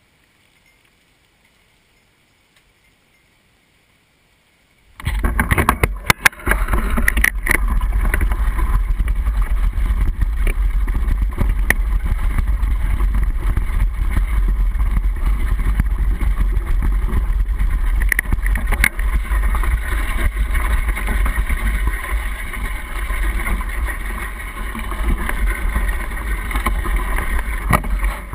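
Near silence for the first few seconds, then about five seconds in a mountain bike starts rolling down a gravel trail: a loud, steady rumble of tyres on gravel and frame vibration, heard through a waterproof camera housing on the handlebar, with sharp rattles and knocks over bumps.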